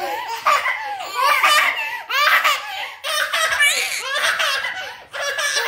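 A baby laughing in a string of short, high-pitched bursts.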